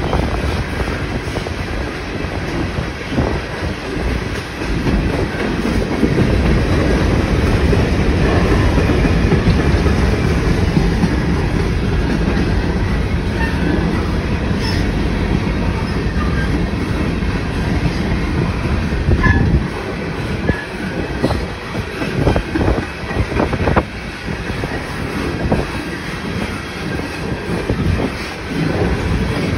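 Freight train of open-top hopper cars rolling past on the track: a steady rumble of steel wheels on rail, with sharper clacks over the rail joints in the later part.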